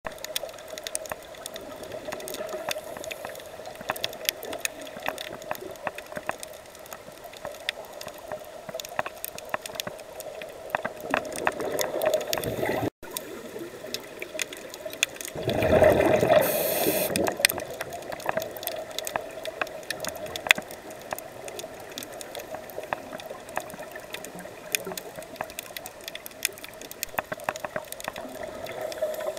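Underwater sound through a diving camera housing: a steady hum under dense crackling clicks, typical of snapping shrimp on a reef. A scuba regulator's exhaled bubbles gurgle past the microphone, loudest in a gush a little past halfway.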